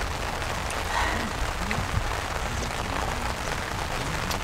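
Steady rain falling, with a few faint scattered drip ticks.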